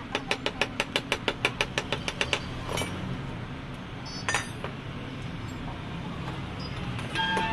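Ratchet wrench clicking rapidly and evenly, about five clicks a second, as it turns on the top of a car shock absorber's rod. After about two seconds the clicking stops, and two separate metallic clinks follow over a steady low hum. Music comes in near the end.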